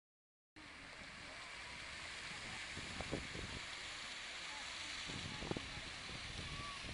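Steady hiss and splash of a park fountain's water jets, with faint voices in the background. It starts suddenly about half a second in.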